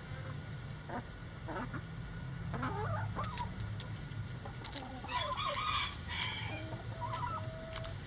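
Chickens clucking, then a rooster crowing about five seconds in, the crow ending in a long held note near the end.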